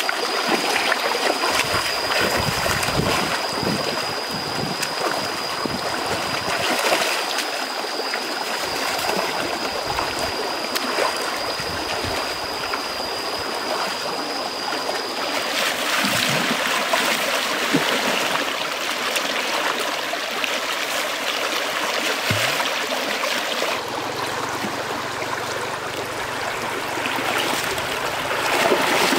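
Shallow rocky stream rushing steadily over stones, with water splashing around a person wading through it and reaching into the current.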